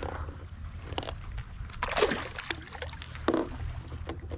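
A hooked false albacore splashing at the surface against the boat's hull while held by the leader, with two louder splashes about two seconds and about three seconds in, over a steady low rumble.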